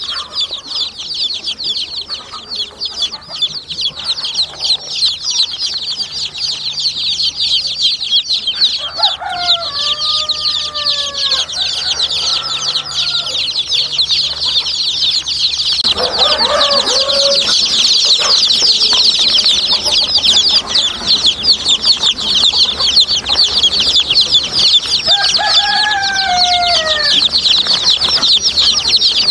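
A brood of baby chicks peeping non-stop in a dense, high-pitched chorus. A few lower, drawn-out calls come through about a third of the way in and again near the end. The chorus gets louder about halfway through.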